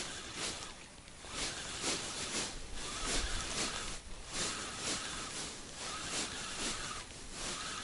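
Spinning reel being cranked during a lure retrieve, a faint whine that comes and goes, over repeated rustling and swishing.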